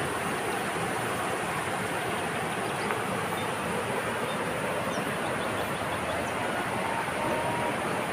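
Steady outdoor rushing noise, even and unbroken, with a few faint high chirps scattered through it.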